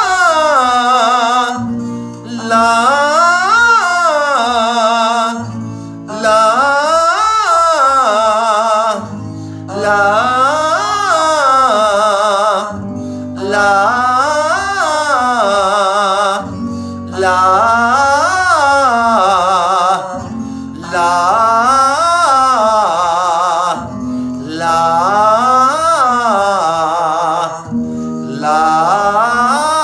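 A man singing a vocal warm-up on "la": each phrase climbs up a triad and comes back down, repeated about every three and a half to four seconds, over a sustained instrumental chord accompaniment.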